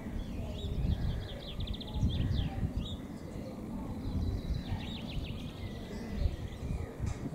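Small birds chirping, with a quick trill about two seconds in and another cluster of chirps around five seconds, over a steady low rumble.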